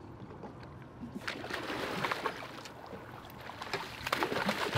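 Water splashing and sloshing as a hooked yellowfin tuna thrashes at the surface beside the boat's hull, in two spells: the first starts about a second in, the second near the end.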